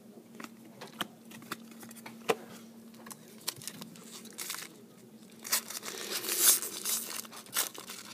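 Trading cards being handled with scattered light clicks. Then, over the last few seconds, a foil-wrapped Bowman baseball card pack crinkling loudly as it is torn open.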